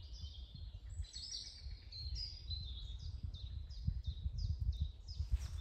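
A bird in the trees calling a rapid series of short, high, falling notes, about three a second, starting about a second in, over a low rumble of wind on the microphone.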